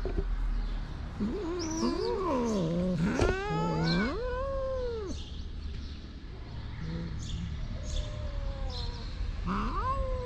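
Stray cats meowing: long, wavering meows, two overlapping, from about a second in until about five seconds, then another meow that rises and falls near the end.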